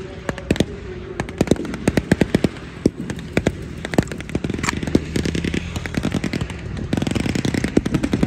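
Distant battle gunfire from blank-firing small arms: irregular single shots with rapid machine-gun bursts, the bursts thickest about five seconds in and again near the end.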